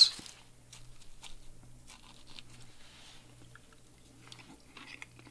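Faint crunching and clicking of a fork picking through a kale and romaine salad in a plastic bowl, and of bites of it being chewed.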